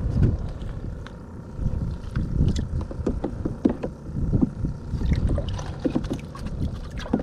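Water splashing and sloshing in a bait bucket as a small dip net is swept through it to scoop live bait fish, in short irregular splashes. Wind rumbles on the microphone underneath.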